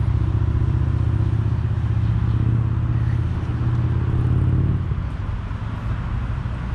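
Road traffic: a motor vehicle's low, steady engine hum that fades about five seconds in, leaving a softer traffic rumble.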